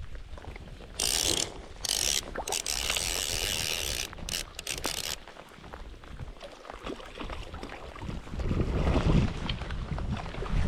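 A fly reel's click-and-pawl ratchet running in bursts through the first half, as line is wound in or pulled off. Wind buffets the microphone in the second half.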